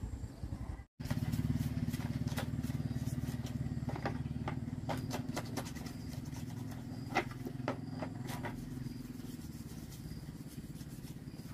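Hard plastic chainsaw parts being scraped and knocked with a small tool in a tub of dirty liquid, giving scattered clicks and taps. A steady low engine-like hum runs underneath. The sound cuts out for a moment about a second in.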